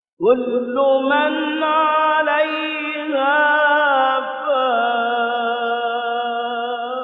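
Male Quran reciter's voice in the mujawwad style, holding one long melismatic phrase with small ornamental turns of pitch. It starts suddenly about a quarter second in and is sustained to the end.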